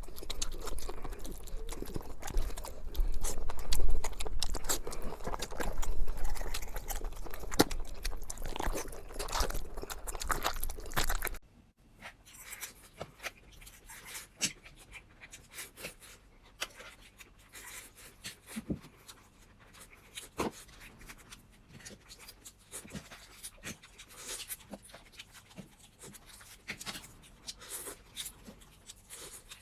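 Close-miked eating sounds: chewing and crunching with wet mouth clicks. A louder stretch over a low rumble cuts off suddenly about eleven seconds in, after which the chewing clicks are quieter and sparser.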